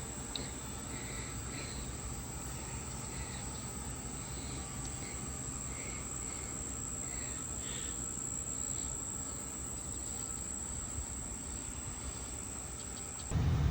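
Steady high-pitched insect trill with a few faint bird chirps over a low steady hum; near the end the trill cuts off suddenly and a louder low rumble starts.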